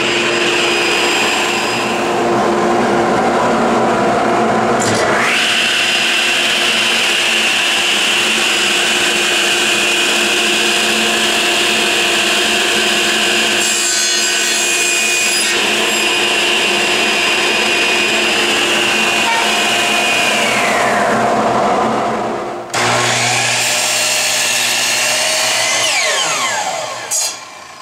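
Electric power saws running and cutting wood: a steady high motor whine under the cutting noise, a saw spinning up about five seconds in and winding down with a falling pitch shortly before a break around 23 seconds. Near the end a DeWalt miter saw winds down after its cut.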